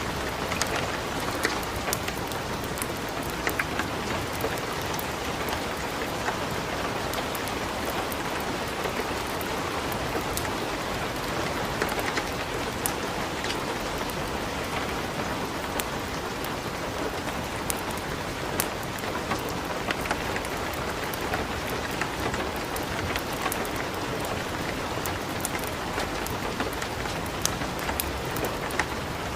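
Light rain falling steadily, mixed with a wood fire crackling in a fireplace, with frequent small sharp pops scattered through the even hiss.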